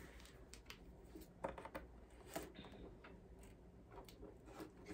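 Scissors snipping into a cardboard box to open it: a few faint, irregular snips and clicks with light rustling of the packaging.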